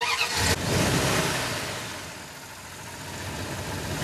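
Motor vehicle engine running with a steady rushing noise, starting suddenly. It is loudest at first, fades through the middle and swells again near the end.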